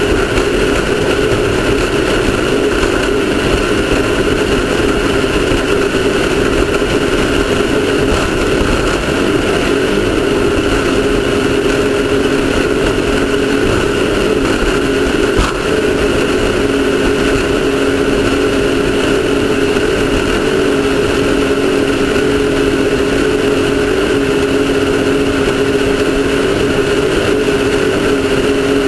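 Off-road race car's engine running at a steady, high speed, with a loud rushing noise over it, heard on board during the race.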